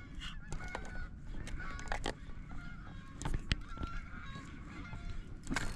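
Birds calling in short, repeated honk-like notes, with scattered sharp clicks and knocks over a steady low rumble.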